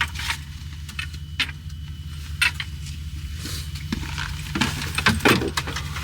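Scattered sharp clicks and rustles, like gear or keys being handled, over a steady low hum; the clicks grow busier near the end.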